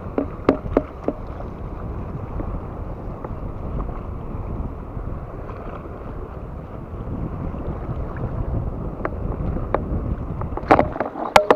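Wind buffeting the camera microphone over choppy sea water washing around the rocks, a steady rushing noise. A few sharp clicks come in the first second, and a louder clatter near the end.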